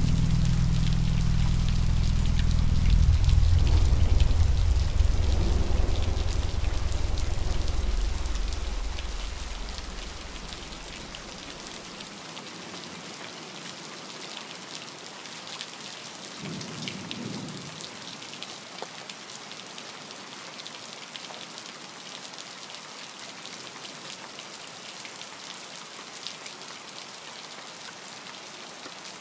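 Steady rain falling, with a fine crackle of drops. A loud, deep rumble underlies the first several seconds and fades out about ten seconds in. A brief, fainter low rumble swells about seventeen seconds in.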